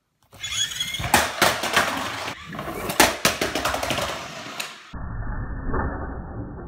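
Toy monster truck rolling down a fabric slide and out onto a wooden floor. Its plastic wheels rumble under a rapid string of clacks and knocks, and after a sudden change about five seconds in there is a duller, steady rolling rumble.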